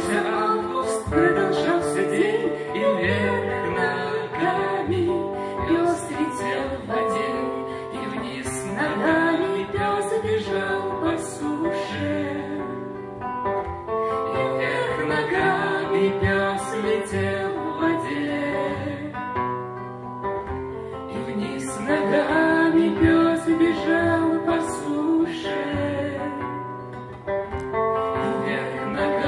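A woman singing a Russian bard song to a steadily strummed acoustic guitar.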